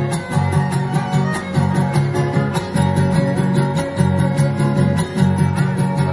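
Son huasteco trio playing an instrumental passage: a violin melody over the rhythmic strumming of a jarana huasteca and a huapanguera.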